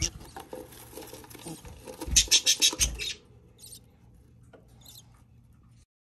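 Budgerigars in a nest box chirping, with a quick run of about seven loud, high chirps about two seconds in. After about three seconds only a couple of faint chirps are left.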